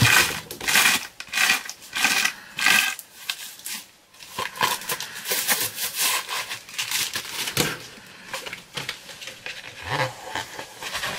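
Paper and packaging rustling and crinkling as a rolled poster is unwrapped and unrolled: a dense run of crinkles in the first three seconds, a short lull about four seconds in, then scattered rustling.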